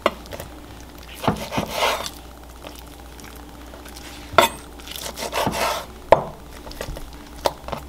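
A kitchen knife cutting pieces of dried salt cod on a wooden cutting board. There are a few sharp knocks of the blade on the board, with softer scraping and handling sounds between them.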